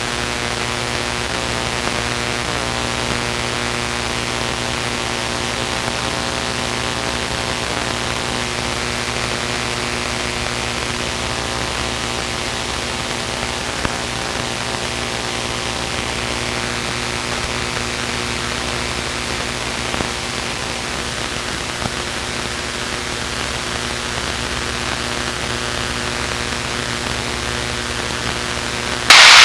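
Luscombe light aircraft's piston engine droning steadily in cruise, a low even hum under a constant hiss. A brief, much louder burst of noise cuts in near the end.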